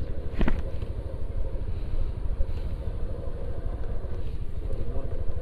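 Honda Beat automatic scooter being ridden downhill: its small single-cylinder engine running along with road noise, heard as a steady low rumble on the rider's clip-on mic.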